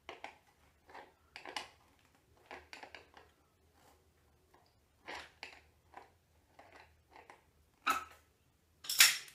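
Pliers tightening the nut on a lead-acid battery's terminal post: a string of short, irregular metal clicks and scrapes, the loudest two near the end.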